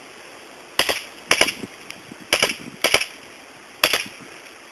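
Airsoft guns firing: about five short bursts of sharp cracks, a second or less apart.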